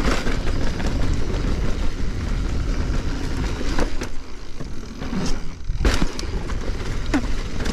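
Mountain bike being ridden on a dirt trail: steady rumble of tyres and wind, with a few sharp knocks from the bike, about four, six and seven seconds in.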